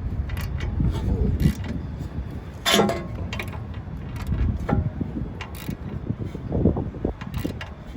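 Hand tools working a suspension bolt on a car's front end: scattered metallic clicks and knocks, with one louder clank about three seconds in.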